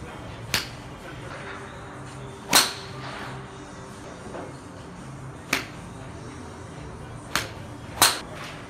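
Golf iron striking balls off a hitting mat: six sharp cracks, the loudest about two and a half and eight seconds in, over a steady low background.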